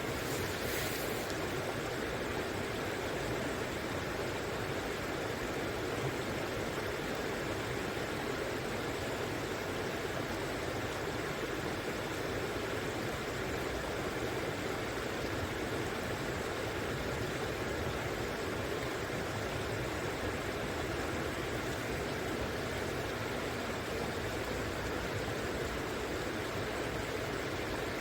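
River water flowing steadily, an even, unbroken rushing hiss.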